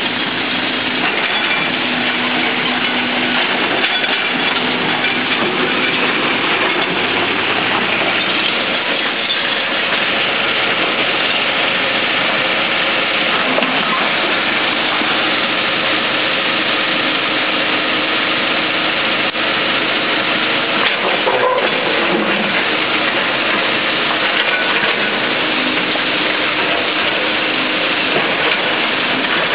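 Diesel engine of a Kobelco hydraulic excavator running steadily while it digs rock, over a constant hiss, with a brief clatter about two-thirds of the way through.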